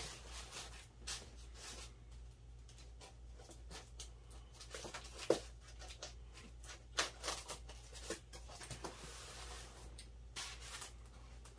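Handling of a guitar's shipping box and its tape and styrofoam packing: scattered scrapes, taps and rustles, with a sharp knock about five seconds in and a longer rubbing hiss about nine seconds in.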